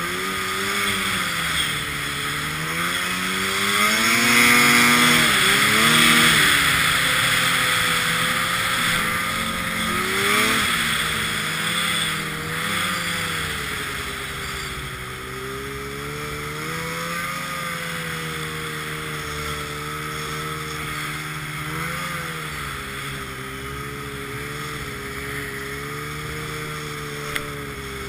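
Arctic Cat M1000 snowmobile's two-stroke twin engine running under way, its pitch rising and falling with the throttle: loudest with the revs up about four to six seconds in, rising again briefly around ten seconds, then holding steadier at lower revs. A steady hiss runs underneath.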